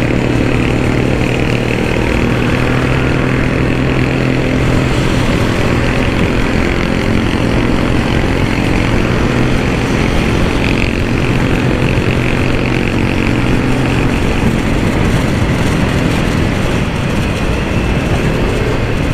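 Motorcycle engine running steadily at cruising speed, heard from on the moving bike with rushing wind on the camera microphone; the engine note holds steady for most of it and wavers in the last few seconds.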